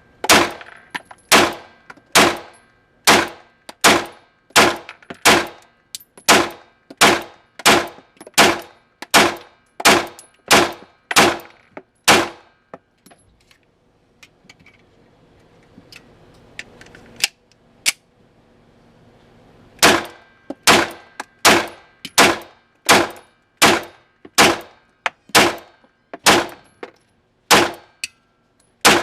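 FN 509 Compact Tactical 9mm pistol fired in steady strings, about two shots a second, with a pause of about seven seconds midway before the firing resumes at the same pace.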